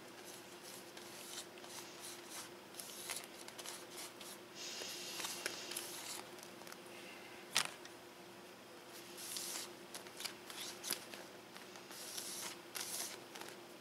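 Faint rubbing and rustling of cotton swabs being wiped over soft vinyl and a vinyl patch, with the deflated toy's sheeting crinkling under the hand. This is the cleaning with rubbing alcohol before gluing. A single sharp tick comes about seven and a half seconds in, over a faint steady hum.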